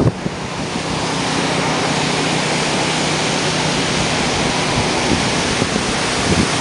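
Hurricane wind and driving rain making a steady, even rushing noise that settles in about a second in, after buffeting gusts. A faint steady low hum runs underneath.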